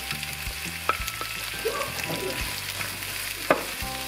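Sliced red onions sizzling in hot oil and garlic in a frying pan, with a few sharp knocks of a wooden spatula against the pan as they are stirred.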